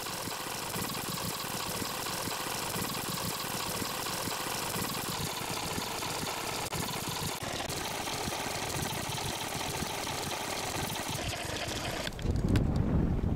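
A boat's engine running steadily, under a wash of noise. Near the end a louder low rumble cuts in and the higher hiss drops away.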